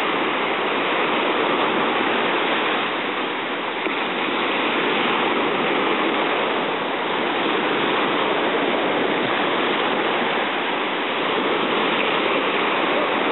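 Ocean surf breaking and washing up the sand: a steady rushing hiss that swells and eases gently a few times.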